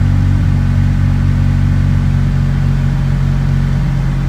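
Honda four-cylinder engine idling steadily, heard from inside the cabin. It is running near the ideal air-fuel ratio, its high-impedance injectors' resistor box bypassed, and no longer lean.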